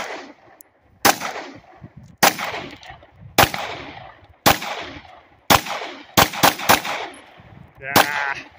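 Glock 19 Gen 5 9mm pistol firing about ten shots, each trailing off in an echo. The shots come roughly one a second, then three in quick succession, then a last one near the end.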